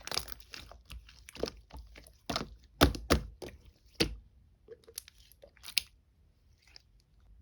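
Slime being pressed and squished by hand, giving a run of sharp, crunchy pops and crackles that thin out after about six seconds.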